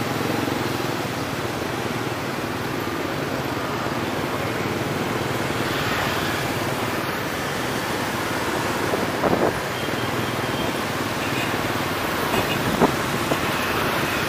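Steady street traffic noise of a busy city road, with a rush of wind on the microphone; a couple of brief sharp sounds stand out about nine and thirteen seconds in.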